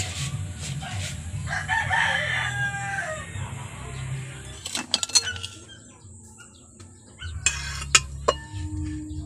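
A single drawn-out call from a domestic fowl, about a second and a half long and falling in pitch at the end, over a steady low hum. Near the end come a short metallic rattle and a click as a fork is handled on a metal pan lid.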